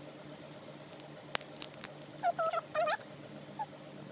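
Small plastic clicks and taps as an AA battery is handled and pressed into a wireless mouse's battery compartment, with one sharp click about a second and a half in. About two seconds in, a few short chirping animal calls rise and fall.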